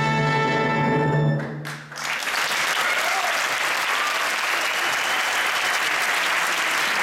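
Symphony orchestra holding a final sustained chord that cuts off about a second and a half in, ending the piece; an audience then breaks into steady applause.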